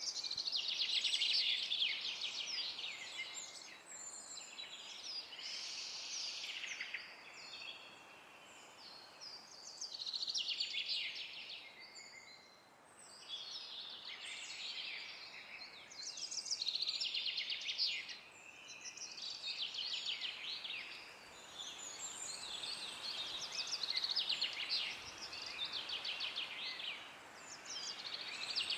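Several songbirds singing and chirping in overlapping bouts of quick trills, with short lulls in between, over a faint steady hiss.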